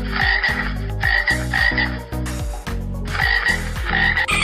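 Frog croaking: a run of short, repeated calls about two a second, with a brief pause near the middle.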